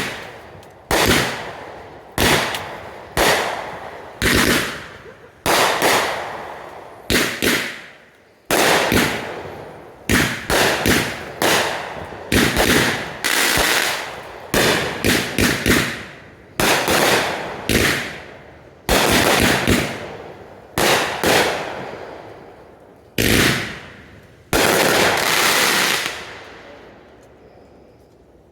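Backyard consumer fireworks going off in a rapid series of loud bursts, about one a second, each trailing away, with quicker clusters in places. A longer, fuller burst comes near the end, and then it dies away.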